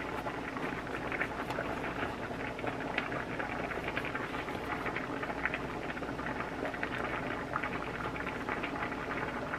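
A knife sawing lengthwise through a crusty Italian loaf, the crust crackling in a dense run of small ticks, over the steady bubbling of a pot of spaghetti at the boil.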